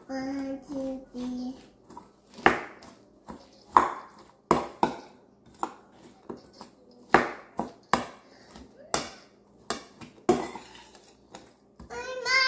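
A metal spoon stirring coleslaw in a stainless steel mixing bowl: irregular clinks and scrapes as the spoon knocks against the bowl's side, several of them sharp, each ringing briefly.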